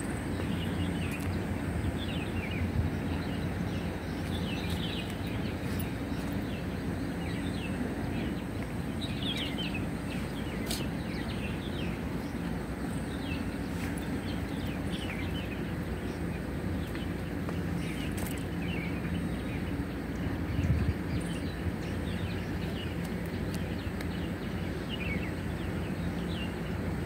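Outdoor ambience of birds chirping in many short, high calls scattered throughout, over a steady low hum and background noise, with a brief low rumble about two-thirds through.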